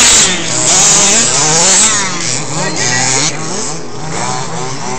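Several radio-controlled off-road race cars running at once, their small motors whining in high pitches that rise and fall as they speed up and slow down. The sound is loudest in the first two seconds and then eases off.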